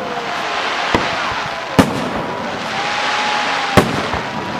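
Fireworks display: a dense, continuous crackle with three sharp bangs of bursting shells, about 1, 2 and 4 seconds in, and a thin whistle held for about a second before the last bang.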